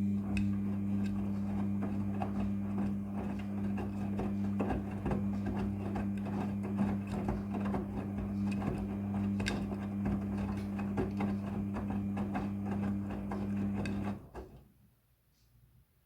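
Midea front-loading washing machine running with a steady electric hum under a busy, crackling rattle, which cuts off suddenly near the end.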